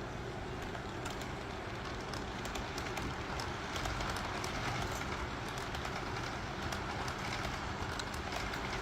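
HO-scale model freight train with a GE AC4400CW locomotive running steadily along the track, with scattered light clicks from the wheels over the rails.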